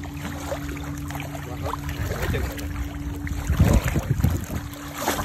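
Water sloshing and splashing as a large sturgeon swims and turns in shallow water, with a louder splashing burst about three and a half seconds in. A steady low motor hum runs underneath and drops out briefly twice.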